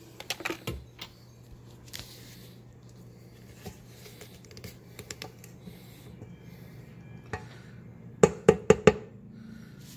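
Light clicks and clatter of kitchen items being handled on a countertop, with a quick run of four or five sharp knocks about eight seconds in, over a low steady hum.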